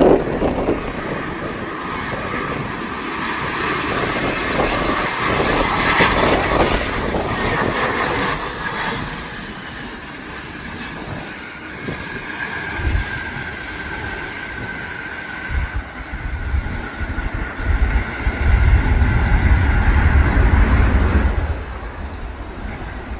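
Airliner's jet engines whining steadily through its landing. Strong gusts of wind buffet the microphone with low rumbling bursts, heaviest a few seconds before the end.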